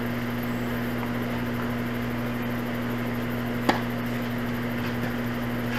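Steady low hum with a hiss of background noise, and a single sharp pop of a tennis ball being hit or bounced about two-thirds of the way through.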